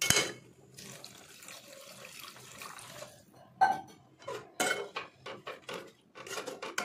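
A clank on a metal kadhai, then water poured into the simmering rajma gravy for about two and a half seconds. Then a metal ladle knocks and scrapes against the pan several times as the gravy is stirred.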